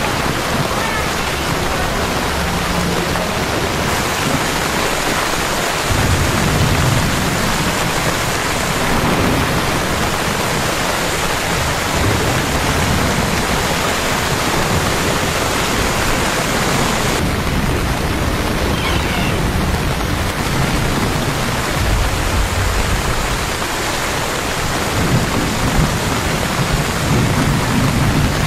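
Heavy rain pouring down onto a paved street, a steady hiss with low rumbling underneath.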